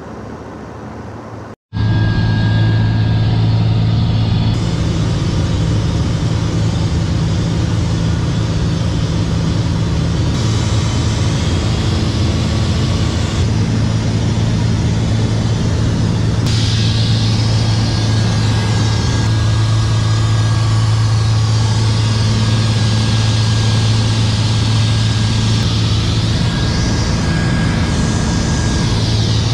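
Loud, steady drone of a small single-engine airplane heard inside its cabin in flight: a low hum at an unchanging pitch under a wash of noise. It is quieter for the first second and a half, cuts out for a moment, then comes back at full level.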